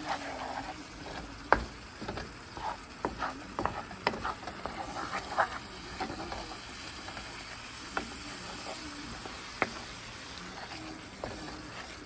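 Wooden spoon stirring vegetables frying in a skillet: a steady sizzle with frequent knocks and scrapes of the spoon against the pan, the sharpest about a second and a half in and others near four and nine and a half seconds.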